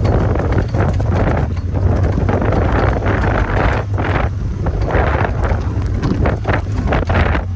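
Honda Talon 1000X-4 side-by-side driving through snow, its parallel-twin engine running steadily. Over it is an uneven rushing noise that swells and fades every second or so, with scattered short knocks.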